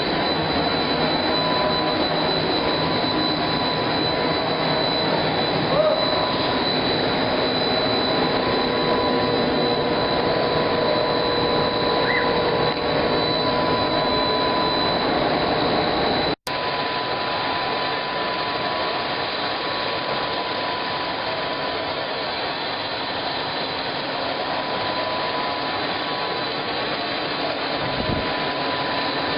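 Instant noodle production line machinery running steadily, a continuous mechanical noise with a steady whine over it. The sound drops out for a split second about halfway through, then carries on slightly quieter.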